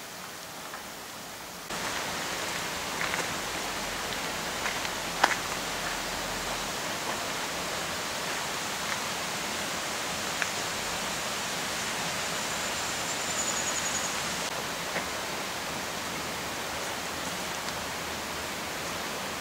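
Steady rushing outdoor noise, with no clear pitch, stepping up in level about two seconds in, with a few light clicks.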